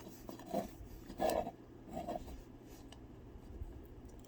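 Plastic figure pieces rubbing and scraping against each other as they are fitted together, in a few short soft scrapes, the loudest about a second in.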